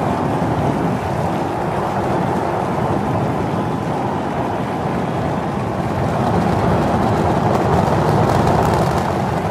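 Starship's Super Heavy booster lifting off on its 33 methane-fuelled Raptor engines: a loud, steady roar with most of its weight low down, swelling slightly about six seconds in.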